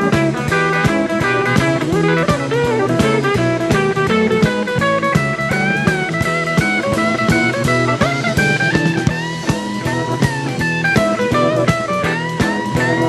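Blues band playing an instrumental passage: a lead guitar line with bent notes over bass and a steady drum beat.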